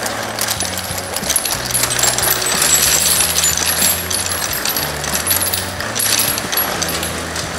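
Spent brass cartridge cases clinking and jingling continuously as an Ammo-Up midline rolling brass pickup is pushed across a concrete floor, its bristled drum flicking the cases up into its wire cage.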